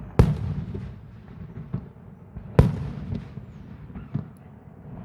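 Fireworks exploding: two loud bangs about two and a half seconds apart, each followed by a rumbling echo, with a few fainter pops between them.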